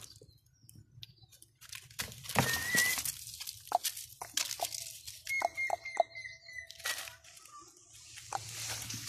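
Pointer dog digging at a burrow, its paws scratching and crunching through dry soil and dead leaves in irregular bursts. A thin high tone sounds briefly about two and a half seconds in and again for over a second in the middle.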